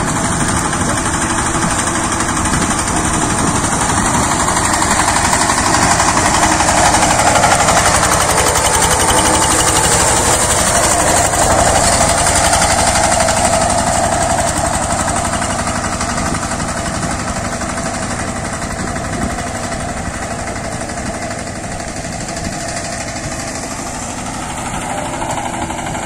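A two-wheel power tiller's engine chugging steadily as it works through the wet paddy mud. It is loudest as the tiller passes close by, then eases off a little as it moves away.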